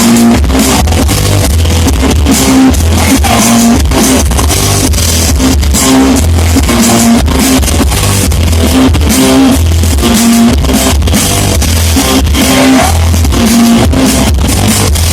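A hard rock band playing live at full volume, with electric guitar, bass and drum kit driving a repeating riff, heard in a poor, overloaded audience recording.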